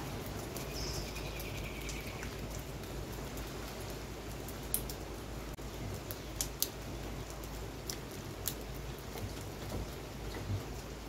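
Steady rain falling, with scattered sharp taps of single drops landing close by.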